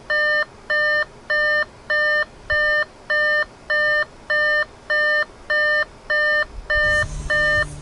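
Audi S5 warning chime beeping over and over, a short multi-tone beep repeating about one and a half times a second. A low rumble joins near the end.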